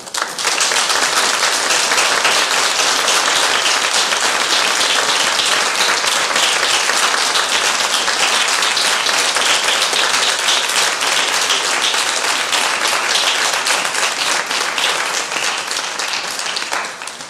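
Audience applauding: dense, steady clapping that starts all at once and dies away near the end.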